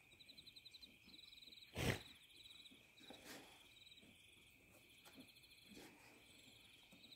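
Insects chirping in the background: a steady high buzz with rapid pulsing trills repeating every second or so. About two seconds in, a short loud burst of noise stands out above them.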